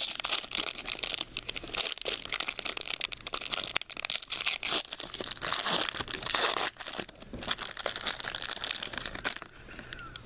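Plastic and foil card-pack wrapping crinkling and tearing as trading card packaging is opened by hand; dense crackling that stops suddenly near the end.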